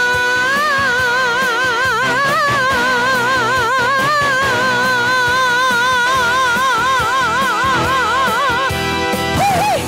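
A woman singer holding the last note of a Chinese ballad for about nine seconds with wide, even vibrato, over band accompaniment, then a short rising-and-falling flourish near the end.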